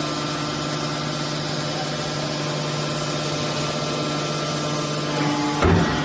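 Hydraulic power unit of a 315-ton scrap-metal baler running with a steady hum, with a short loud knock near the end.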